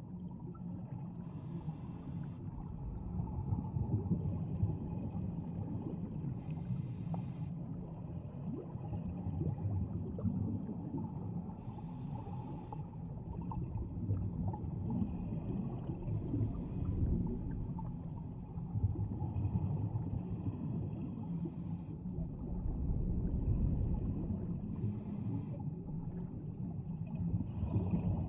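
Scuba regulator free-flowing underwater: a continuous rumble and gurgle of escaping air bubbles, with a short hiss of breath drawn through the regulator about every four to five seconds.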